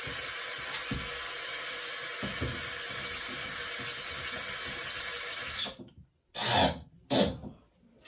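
Water hissing steadily through a Niagara flapperless toilet's fill valve as it slowly refills the tank; its broken disc shut-off seal lets water trickle and spray from the wrong spot. The hiss dies away just before six seconds in as the water supply is shut off, and two short thuds follow.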